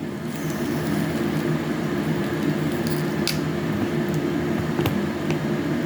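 Wet squishing and chewing of juicy citrus segments close to the microphone, over a steady low hum, with a few faint clicks.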